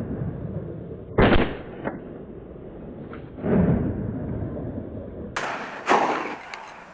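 Shotgun shots fired at flying ducks: three reports, about 1, 3.5 and 6 seconds in, each trailing off in a long rolling echo.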